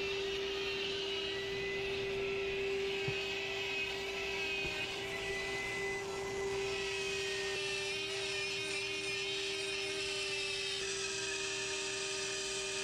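A motor running steadily: one held mid-pitched tone over a hiss, unchanging throughout.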